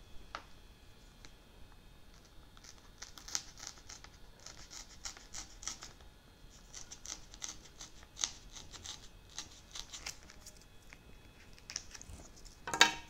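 X-Acto hobby knife cutting a channel freehand into the wrap-covered top of an RC flying wing: a run of short, scratchy knife strokes. Near the end comes one louder rasp.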